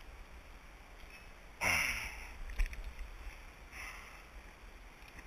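Low wind rumble on the microphone. About one and a half seconds in there is a short vocal sound from the angler whose pitch falls. A few light clicks follow from hands, lure and fish as the angler unhooks a bass.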